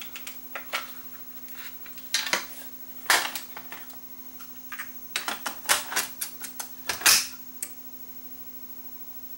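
Irregular clicks and clatter of small hard objects being handled, in clusters a couple of seconds in and again around five to seven seconds in. Under them is a steady low hum that set in as the Technics RS-676 cassette deck was switched on.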